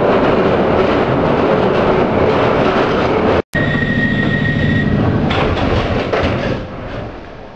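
Interior of a London Underground 1967 stock train running loudly on the Victoria line, with the sound cutting out abruptly a little over three seconds in. The train then stands at the platform with a steady high whine and low hum, and its sliding doors close about two seconds later, after which it goes quieter.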